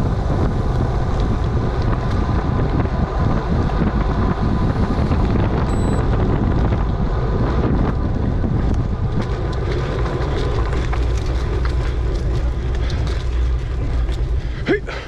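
Wind buffeting the microphone of a camera on a moving bicycle: a steady, loud rush. Scattered light clicks come in over the second half, and a short squeak sounds right at the end.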